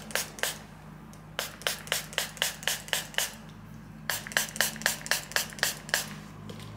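A spray bottle is pumped in quick runs of short spritzes, about five a second, with brief pauses between the runs.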